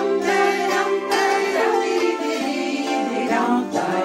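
Latvian folk board zither being plucked and strummed, playing a folk melody. Many strings ring on and overlap, with fresh strums coming every second or so.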